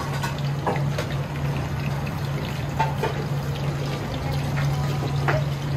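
Strips of food deep-frying in a large pot of hot oil, a light bubbling hiss with scattered small pops, over a steady low hum.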